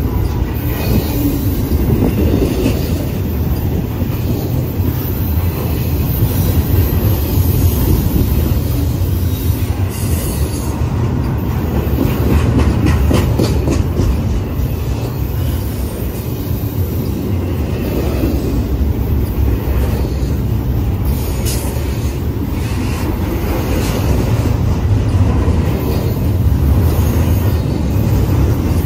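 Double-stack intermodal freight train's well cars rolling past at close range: a steady, heavy rumble of steel wheels on rail, with a run of sharp clicks from the wheels a little before the middle and again about two-thirds of the way through.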